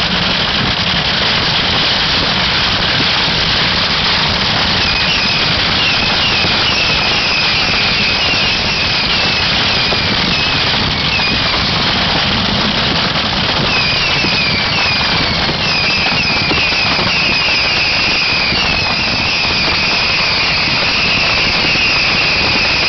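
Beehive fireworks: a rack of bottle rockets firing in a loud, continuous, dense barrage. From about five seconds in, many short falling whistles sound over it, thickest in the second half.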